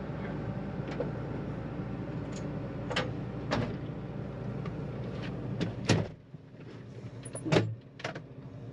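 Farm machine engine, most likely the John Deere 9500 combine's, running steadily, with a few sharp clicks and knocks. About six seconds in, the low engine hum drops away and it turns quieter.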